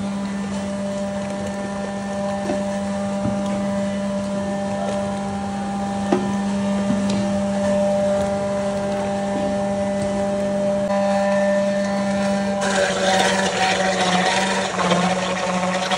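A steady machine hum with a few light knocks. About 13 s in, a louder rushing hiss joins it.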